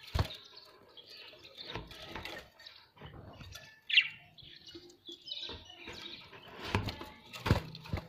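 Budgerigars chirping and chattering, with a sharp loud chirp about four seconds in. A flutter of wings comes right at the start, and a few dull thumps follow later.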